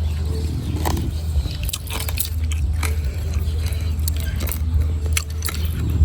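Close-up crunchy biting and chewing of fried scorpions, with irregular sharp crunches over a steady low hum.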